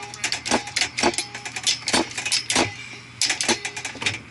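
Copper refrigerant line and a tube bender being handled and worked, giving quick irregular metallic clicks and clinks, several a second, that ease off about three seconds in.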